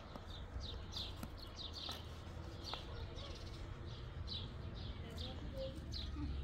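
Small birds chirping, a run of short falling chirps about two or three a second, over a low steady rumble.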